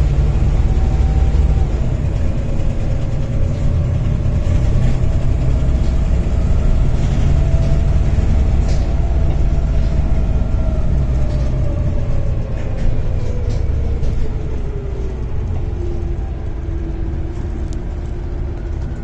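Volvo B7TL bus's turbocharged six-cylinder diesel running hard, with a turbo whine over the engine's low rumble that climbs slightly, then slides steadily down in pitch over several seconds before levelling off.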